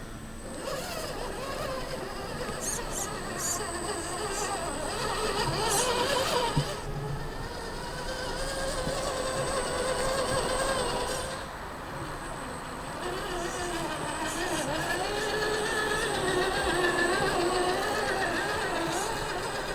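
A CROSSRC 4x4 RC crawler's electric motor and geartrain whining, the pitch rising and falling as the throttle changes, with one sharp knock about six and a half seconds in.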